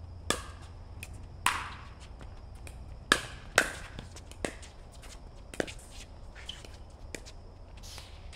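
Pickleball rally: paddles hitting the plastic ball with sharp pops about once a second. The loudest are two hits half a second apart some three seconds in, with lighter taps between.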